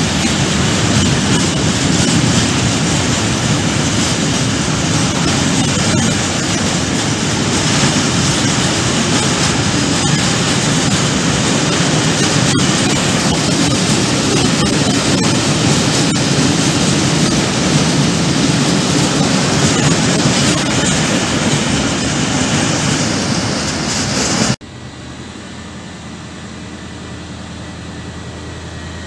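Freight train of hopper wagons rolling past: a loud, steady rumble of wheels on rail with an occasional clack. About 25 seconds in it cuts off abruptly to a much quieter low hum of a regional train pulling into the station.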